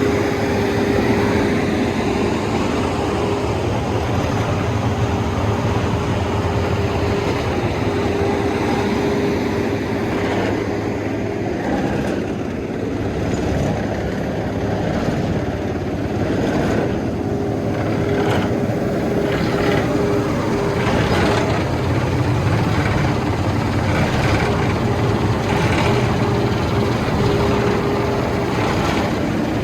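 Vögele Super 1803-3i asphalt paver's diesel engine running steadily, with a steady whine over the low engine hum. Light clicks and rattles come in the second half.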